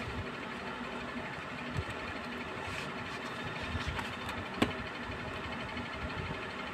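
Cardboard carton handled as a plastic dropper bottle is slid out of it, with small clicks and one sharp click about four and a half seconds in, over a steady motor-like hum.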